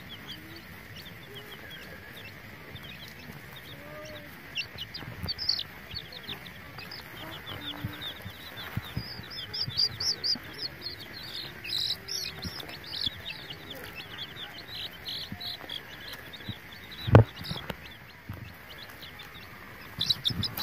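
Chicken chicks peeping in rapid runs of short, high chirps, busiest in the middle, with one sharp knock about three quarters of the way through.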